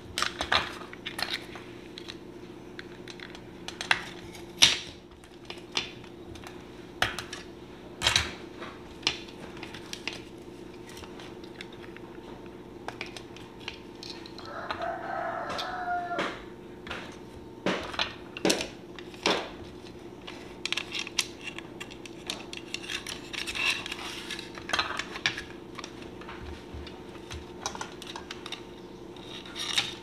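Scattered clicks and knocks of a plastic analog timer housing, its wires and a screwdriver being handled and set down on a tabletop, over a steady low hum.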